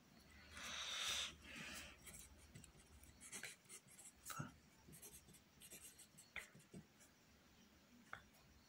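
Faint pencil and hand rubbing on drawing paper: a soft scratchy rustle about a second in, then light scattered ticks and scratches of the pencil on the paper.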